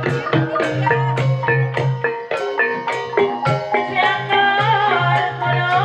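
Javanese gamelan-style music: struck mallet instruments play quick runs of ringing notes over a steady low tone, and a wavering sung line joins about four seconds in.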